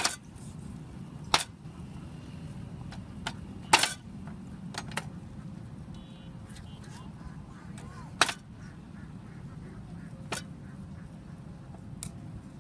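Meat cleaver chopping chicken on a round wooden chopping board: sharp single chops spaced a second or more apart, with lighter knocks between them, over a steady low rumble.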